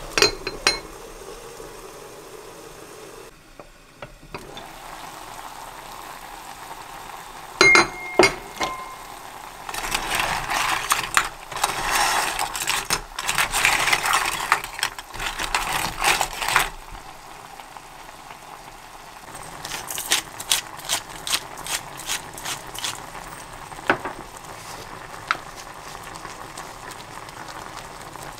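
Scallop shells clattering against each other and against a ceramic-coated saucepan as they are stirred with a wooden utensil, in a dense rattling run of several seconds. Before it there are a few sharp clicks and two loud knocks from the pot's lid. Lighter scattered clicks follow, over a steady low hiss.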